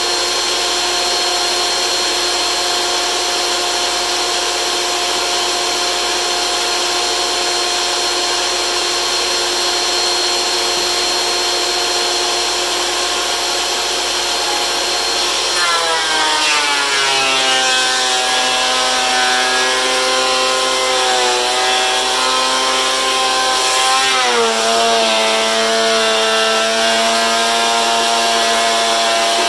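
DeWalt benchtop thickness planer running with a steady high whine. About halfway through, its pitch drops and wavers as the cutterhead bites into the boards under load, and it sags again about three-quarters of the way through.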